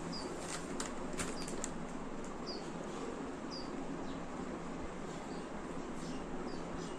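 A few light clicks in the first two seconds as a plastic buckle and nylon straps on a strap mount are handled, over a steady background hiss. A small bird chirps short, high, falling notes about once a second.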